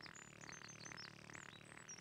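Faint birdsong: quick, high chirping notes over a soft, steady music bed, with a rapid run of repeated chirps near the end.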